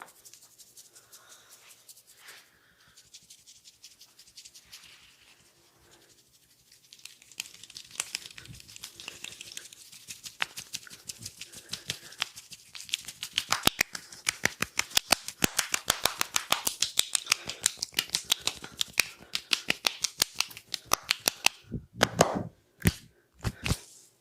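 Hands working over the head in an oil head massage: soft ticks at first, then a fast run of sharp taps and slaps, many a second, that builds up about seven seconds in. A few heavier slaps come near the end.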